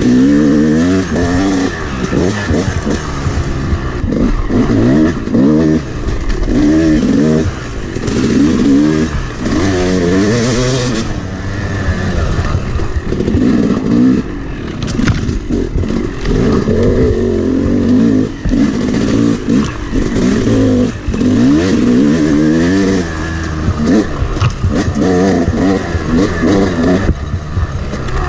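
2011 Yamaha YZ250's single-cylinder two-stroke engine, freshly rebuilt top and bottom end, revving up and falling back over and over as the dirt bike is ridden along a trail.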